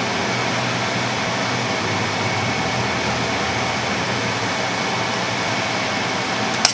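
Steady rushing noise from the stove: a range hood fan and a gas burner under a large stockpot of boiling pork-bone broth, with a faint low hum.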